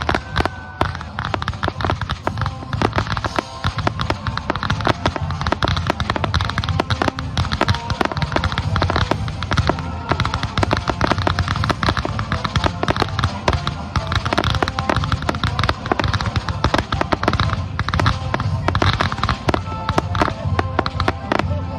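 Aerial fireworks going off in quick, dense succession: a rapid string of bangs and crackles over a continuous low rumble.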